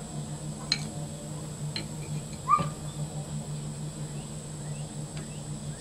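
A few light clicks and knocks as wooden handle panels are handled and fitted against a sword's tang, the loudest about two and a half seconds in, over a steady low hum. Faint short chirps of birds repeat in the background near the end.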